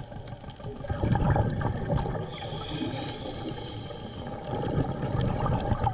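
Underwater sound of a diver breathing through a regulator: exhaled bubbles gurgling and hissing in irregular surges over a low rumble.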